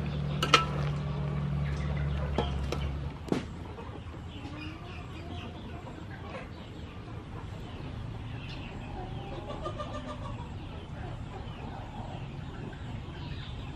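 Sharp metal clinks of a spatula and plate against an aluminium wok over a steady low hum, three in the first few seconds; after the hum stops, chickens clucking.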